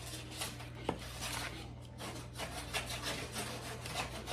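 Irregular scraping with light clicks and knocks, like kitchen utensils working on food against a board or plate, over a steady low electrical hum.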